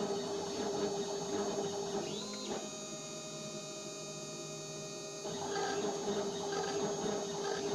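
CNC milling machine engraving a metal plate with a fine engraving bit: a steady spindle hum under a rough scratching cut. About two seconds in, the cutting noise drops away and a whine rises and holds for some three seconds, then the scratching cut resumes.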